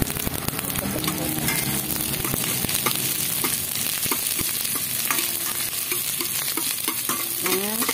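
Sliced red onion and garlic sizzling in hot oil in a stainless steel pot, stirred with a metal spatula that clicks and scrapes against the pot.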